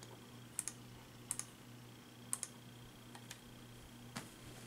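A few faint, sharp clicks, most of them in quick pairs, over a steady low hum.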